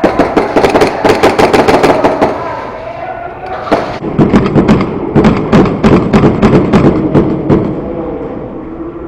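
Airsoft guns firing rapid strings of shots: one run of about two seconds, then a longer run a couple of seconds later.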